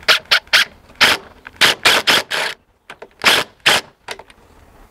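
DeWalt impact driver driving screws through a railing bracket, pulsed in about ten short rattling bursts with brief pauses between them as each screw is run in and snugged tight.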